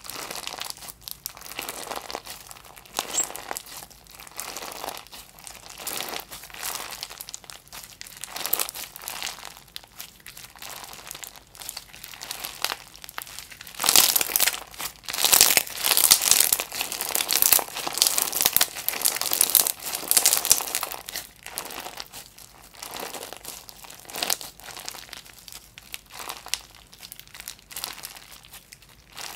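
Clear slime packed with bead add-ins being squeezed and kneaded by hand: a dense run of small wet clicks and crackles. It gets louder for about seven seconds in the middle as the slime is pressed hard between both hands, then settles back as it is stretched.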